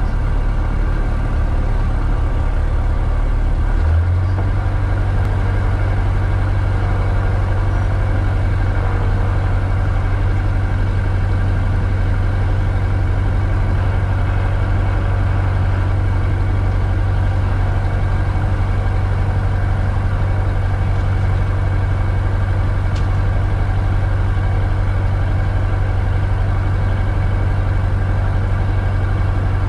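A single-engine propeller aircraft's engine runs steadily, heard from inside the cockpit. Its low drone shifts and grows stronger about four seconds in, then holds a level pitch.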